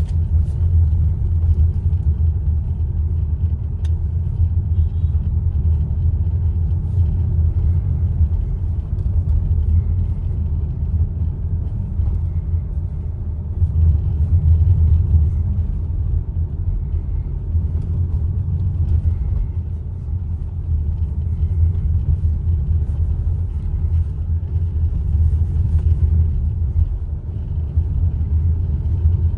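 Steady low rumble inside the cabin of a moving Hyundai Palisade: road and tyre noise with the drivetrain running underneath.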